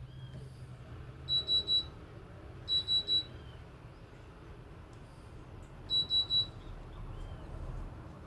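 Brastemp BWT09A washing machine's electronic beeper sounding short high beeps in quick groups of three, three groups in all. A low hum stops just as the first group begins.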